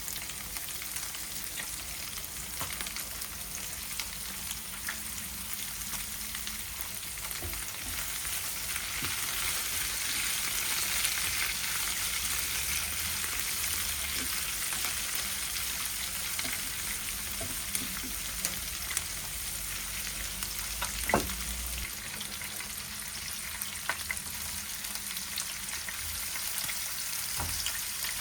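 Food sizzling in oil in a frying pan, the sizzle swelling through the middle, with a few light clicks and one sharper knock about three-quarters of the way through.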